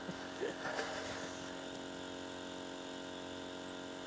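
Small electric air pump running with a steady hum, inflating a chamber of an inflatable boat.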